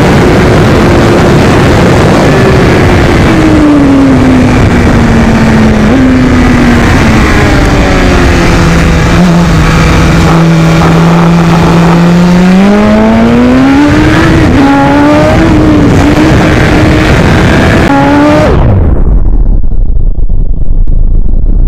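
Sport bike engine under a constant rush of wind. The engine note falls steadily as the bike slows, holds low for a few seconds, then climbs again with quick step changes as it accelerates through the gears. Near the end the engine note vanishes under heavy low wind rumble on the microphone.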